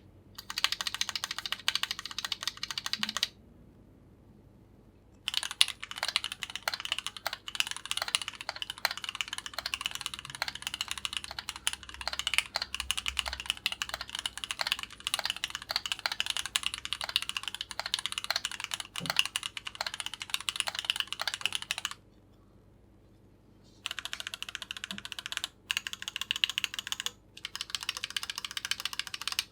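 Typing test on a Keychron Q8 aluminium mechanical keyboard, fitted with Gateron Oil King linear switches: fast, continuous keystrokes. The typing stops twice for about two seconds, a few seconds in and again about three-quarters through.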